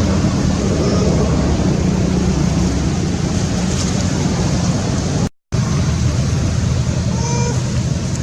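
Steady low engine rumble, broken by a brief gap of silence about five seconds in.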